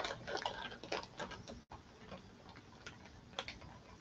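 Faint, irregular crinkling and clicking of a plastic bag of shredded Parmesan cheese being handled and opened by hand.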